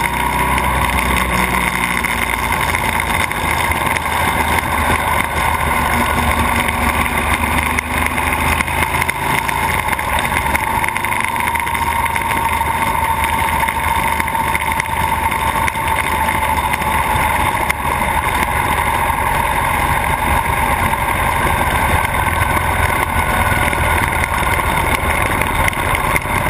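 Buell XB12S's air-cooled 1203 cc V-twin engine running at cruising speed, its pitch drifting slightly up and down with the throttle, under steady wind and road noise from a camera mounted on the bike.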